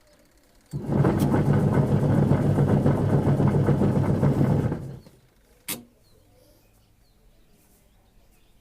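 LG washing machine's wash motor and gearbox driving the pulsator: starts about a second in, runs steadily with a low hum and a rough rattle for about four seconds, then stops. A single sharp click follows about a second later.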